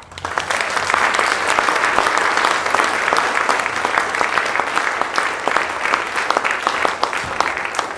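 Audience applauding: many hands clapping together. The applause swells up right at the start, holds steady, and begins to thin out near the end.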